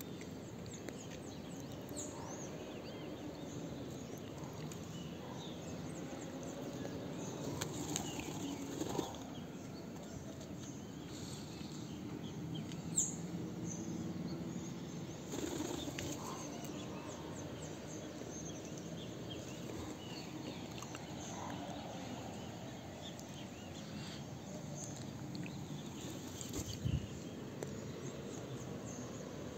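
Wings of birds flapping as they fly in free training, with faint chirping of birds in the background.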